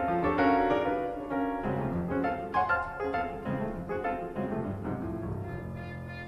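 Background piano music, a run of struck notes over a lower bass line, getting gradually softer.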